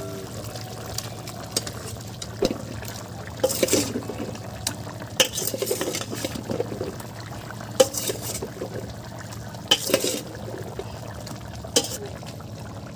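Chunks of bottle gourd going into a wok of simmering pork curry: wet splashes and irregular clinks of a metal ladle against the iron pan, about eight knocks spread across the stretch.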